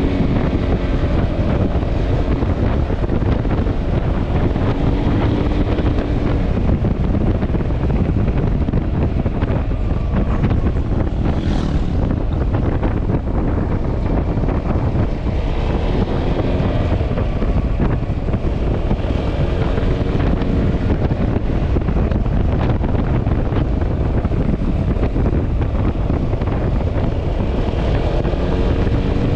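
Wind buffeting the microphone at riding speed on a Yamaha Xmax scooter, over steady engine and road rumble. A faint pitched engine hum rises and fades several times, and there is a brief hiss about halfway through.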